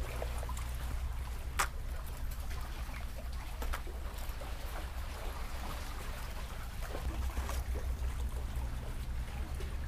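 Wind rumbling on the microphone over lapping water, with one sharp click about one and a half seconds in.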